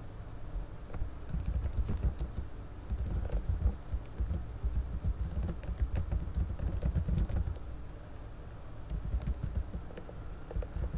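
Computer keyboard typing: irregular soft taps over dull low thumps, in a run that eases off about eight seconds in and picks up briefly again near the end.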